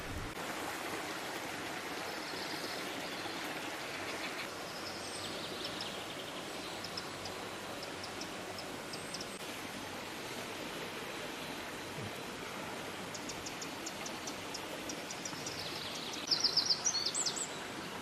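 Steady rush of a forest stream, with small songbirds chirping over it now and then; a quick run of high chirps near the end is the loudest sound.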